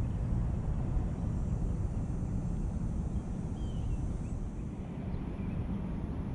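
Steady low outdoor rumble, like distant traffic or wind on the microphone, with a faint short high chirp about three and a half seconds in.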